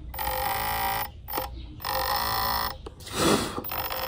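A2212 2200KV brushless airplane motor buzzing in three bursts of about a second each as the throttle is worked, with a brief rush of noise between the second and third. The motor and its ESC got wet, and the owner thinks the water may have confused the circuit.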